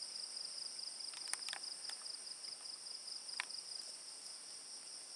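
Night insect chorus: a steady high trill on two pitches, the lower one pulsing rapidly. A few faint clicks come between about one and two seconds in and again at about three and a half seconds.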